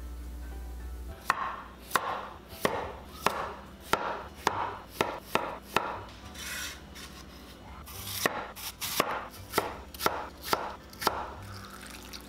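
Kitchen knife chopping cucumber on a wooden cutting board: a steady run of sharp chops, about two a second, with a short pause about midway.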